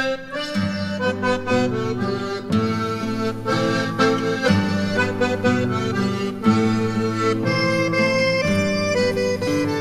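Instrumental background music: a melody of held chords and notes that change every half second to a second.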